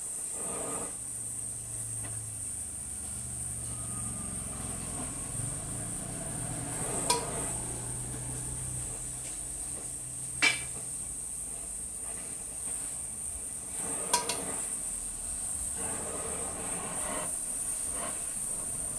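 Three sharp metallic clinks with a short ring, a few seconds apart, over a steady high-pitched hiss and a low hum, typical of metal tools handled during work on a car's alloy wheel.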